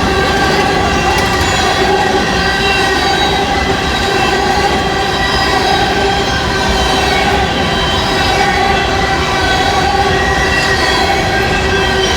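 CSX freight train cars rolling past at close range, a steady loud rumble of wheels on rail with several high, sustained squealing tones from the wheels.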